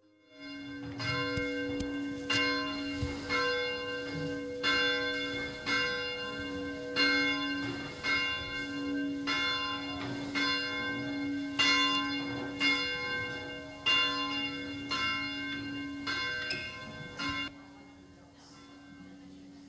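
A church bell tolling about once a second, each stroke ringing on over a steady hum. The tolling stops about 17 seconds in and the ring fades away.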